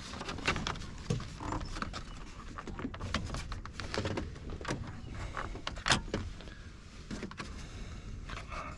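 Irregular clicks, taps and light rattles of hands working the plastic steering column shroud apart, with one sharper knock about six seconds in.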